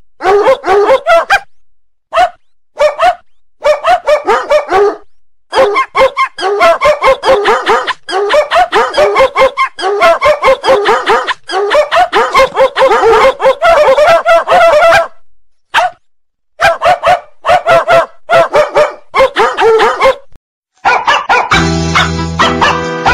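A ringtone made of recorded dog barking: quick runs of short barks and yips, several a second, broken by brief pauses. Near the end it gives way to the start of a musical ringtone with steady held notes.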